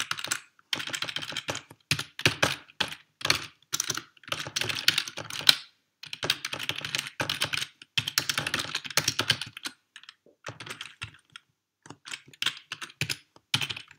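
Typing on a computer keyboard: rapid keystrokes in bursts of about half a second to a second and a half, separated by short pauses.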